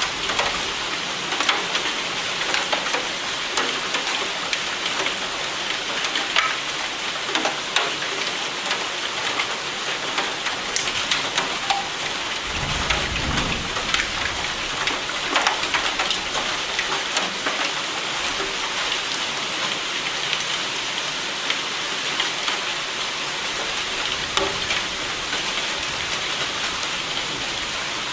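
Steady heavy rain, a dense hiss full of distinct individual drop hits. Near the middle comes a brief low rumble of thunder lasting a second or two.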